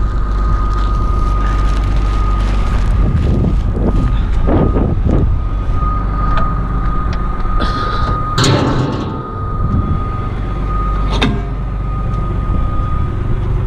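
Renault Ares tractor engine running steadily at idle, with a steady high whine over it. Rustling and knocking from hands working at the round baler's net-wrap, with a sharp click about eleven seconds in.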